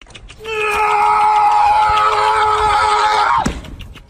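A person screaming: one long, loud, steady scream that holds its pitch for about three seconds, then slides sharply down and breaks off.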